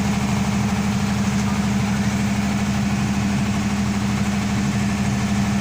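Generator engine running steadily with an even hum that does not change.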